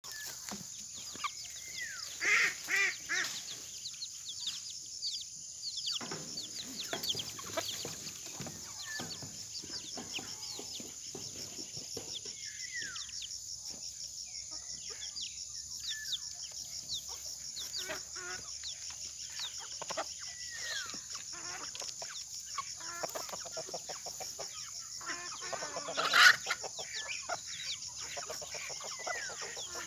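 Free-range chickens clucking and calling over a steady high-pitched shrill. A few louder calls come about two seconds in, and one sharp, loud sound comes near the end.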